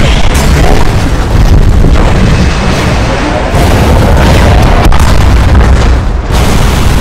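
Explosion sound effects: a loud, continuous deep booming rumble, changing abruptly every second or two, with one sharp crack about five seconds in.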